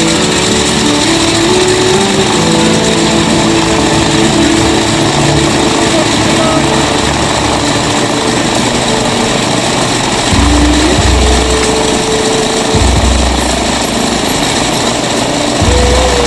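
Boeing Stearman biplane's radial engine running on the ground, loud and steady, with a heavier low throb coming in from about ten seconds in.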